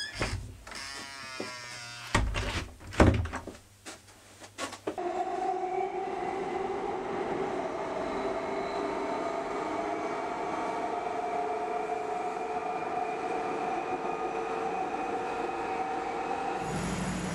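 A few loud thumps in the first seconds. Then the steady running noise of an underground train, heard from inside the carriage, with a steady whine over the rumble. The sound changes near the end.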